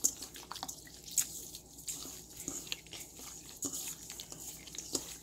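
Raw shucked oysters being rubbed gently by hand with coarse salt in a stainless steel bowl: soft wet squishing with irregular little clicks and drips, as the salt-wash draws dark, slimy water out of the oysters.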